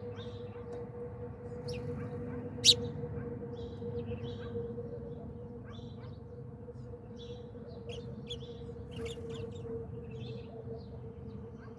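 Small birds chirping in short, scattered calls, over a steady low hum. A single sharp click about three seconds in is the loudest sound.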